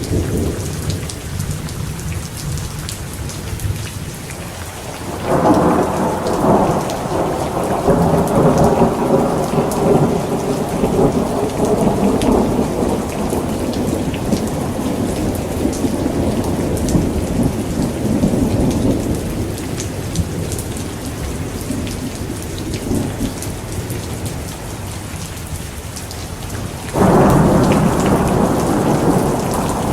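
Thunderstorm: steady rain with rolling thunder. A peal breaks suddenly about five seconds in and rumbles on, slowly fading, for some fifteen seconds; another peal breaks suddenly near the end.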